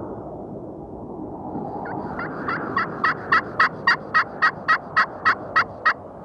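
Wild turkey yelping: a run of about fourteen evenly spaced yelps, roughly three and a half a second, starting about two seconds in, over steady wind noise.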